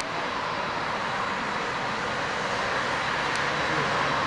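Boeing 787-8 airliner's twin GEnx turbofan engines at takeoff thrust as the jet rotates and climbs away: a steady, even jet noise with no breaks.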